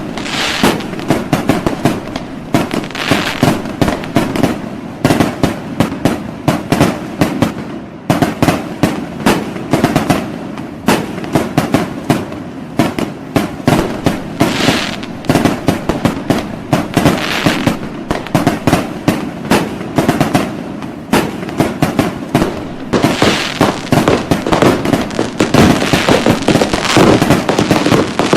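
Fireworks going off in a dense, continuous barrage of bangs and crackling, with many reports overlapping, growing denser and louder in the last few seconds.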